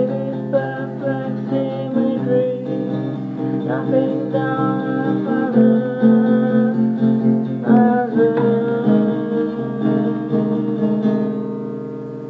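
Acoustic guitar being strummed, its chords ringing, growing quieter toward the end.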